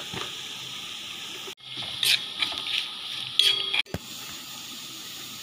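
Spice masala frying in coconut oil in a cast-iron pan: a steady sizzle, broken in the middle by a couple of seconds of a metal spatula scraping and stirring against the pan. The sound drops out abruptly twice.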